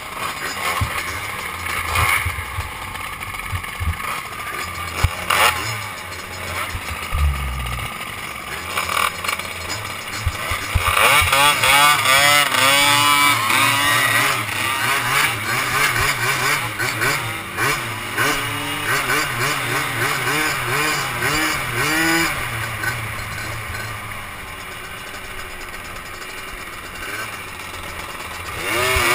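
Youth 90 cc quad (ATV) engines idling and revving. About ten seconds in, several engines rev up together in rising sweeps as the quads pull away. The engine sound swells again near the end.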